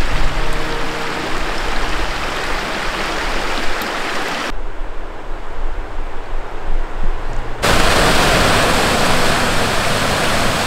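Mountain creek water rushing over rocks, heard in a few cut-together stretches. About halfway the rush turns quieter and duller for a few seconds. Then a louder, fuller rush of a cascading stream comes in.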